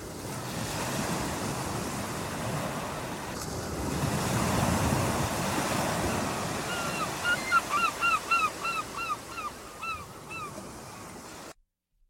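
Ocean surf: waves washing on a shore, a steady rush that swells about four seconds in. From about seven seconds a bird calls in a quick series of short, hooked notes, about three a second, for several seconds, before everything cuts off near the end.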